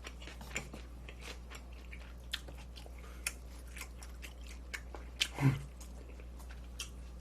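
Close-miked chewing of a mouthful of barbecued meat: a string of short wet clicks and smacks, with a brief hum from the eater about five and a half seconds in.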